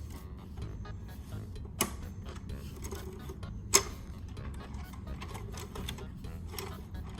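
Plastic LEGO gears ticking faintly as the hand crank of a LEGO NES television is turned to move Mario across the screen, with two sharp clicks about two seconds in and near four seconds in, the second the loudest. A steady low hum runs underneath.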